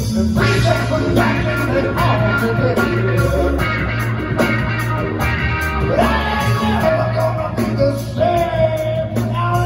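A psychedelic rock band playing live, with electric guitars, bass and drums and a voice singing held notes over a heavy, steady low end.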